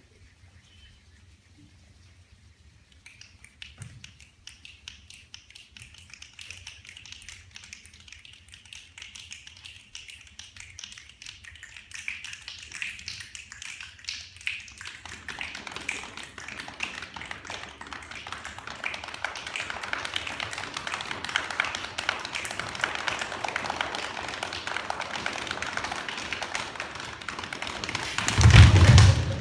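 A group of singers making a body-percussion rainstorm: soft hand rubbing gives way to many scattered finger snaps about three seconds in, thickening into dense leg slapping from about halfway, imitating rain building to a downpour. A loud burst of stomping comes near the end, the thunderclap.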